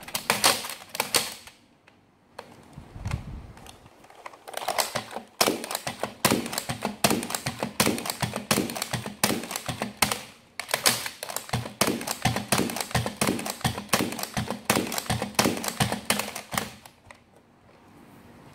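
Nerf Zombie Strike Flipfury foam-dart blaster being primed and fired over and over: a run of sharp plastic clacks, roughly two or three a second, with a short lull and a low thud about three seconds in. It goes quiet near the end.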